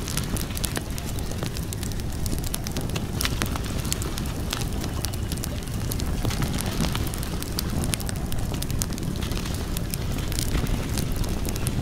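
Wood fire crackling, with frequent sharp irregular pops over a steady low rumble.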